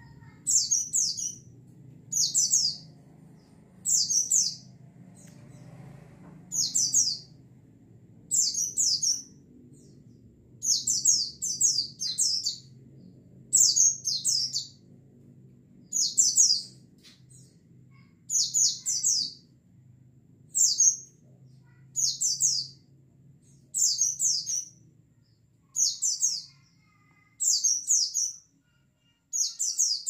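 A white-eye (pleci) calling, repeating a short, high chirping phrase of a few quick notes about every two seconds.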